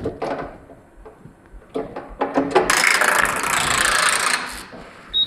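Computerized flat knitting machine's carriage traversing the needle bed during a machine reset. A few clicks lead into a loud mechanical rattle and rush lasting about two seconds, which dies away near the end. A short beep follows.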